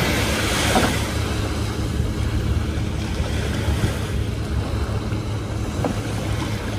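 Small surf washing steadily onto a sandy beach, with wind rumbling on the microphone.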